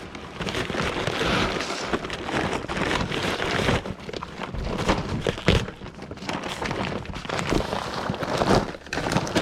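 Pelleted protein deer feed pouring and rattling into a feeder: a dense clatter of many small hard pellets, with a few heavier knocks.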